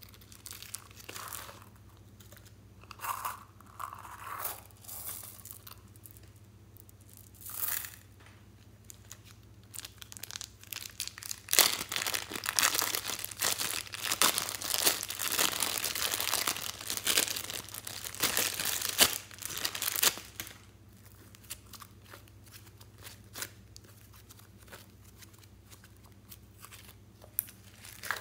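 Thin plastic bag crinkling and tearing as blue slime is pulled out of it: a dense, loud crackle lasting about eight seconds in the middle. Before it, a few short rustles of handling; after it, only scattered faint ticks.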